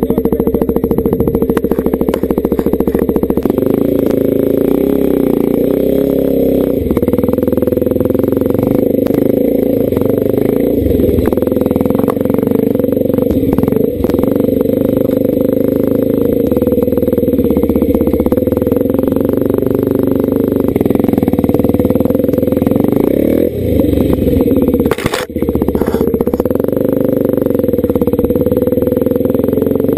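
Single-cylinder four-stroke dirt bike engine running under way on a rough trail, with small rises and falls in revs and a rev rise about 23 seconds in. A single sharp knock about 25 seconds in.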